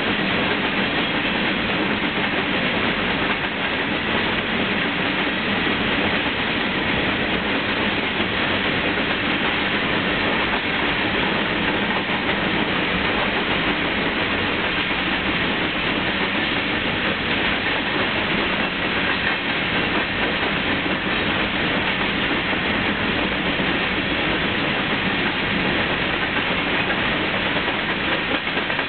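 Covered hopper cars of a freight grain train rolling steadily past: a continuous, even noise of steel wheels running on the rails.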